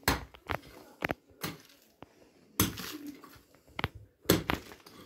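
A pick striking and breaking up a hard-packed earth floor: a series of sharp blows at irregular intervals, about one a second, some trailing into the crumble of loosened soil.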